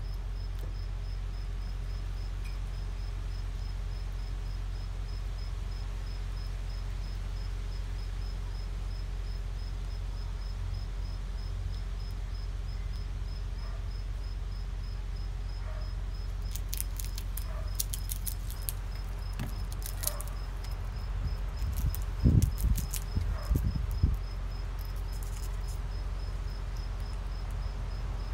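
Steady pulsing insect chirp over a low hum. About two thirds of the way through, a squirrel cracking peanut shells makes a run of crisp crackles, with a few dull thumps.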